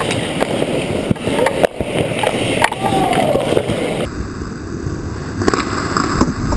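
Ice hockey skates scraping and carving on rink ice, with sticks and puck clacking in sharp knocks every second or so, heard close up from a camera worn by the goalie.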